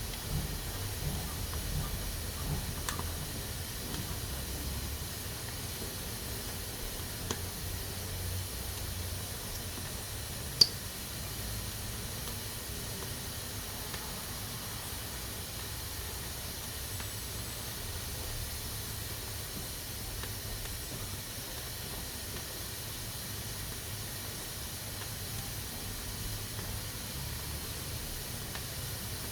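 Pressure cooker hissing steadily as steam escapes, with a low rumble underneath. A single sharp click cuts through about ten seconds in.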